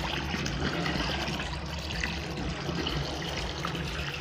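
Water pouring steadily from a garden hose into a 200-litre barrel as it fills with a foamy fertiliser solution.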